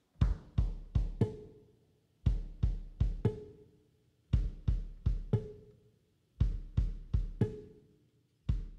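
Background music: a drum beat, a group of four hits with a heavy low thump repeating about every two seconds.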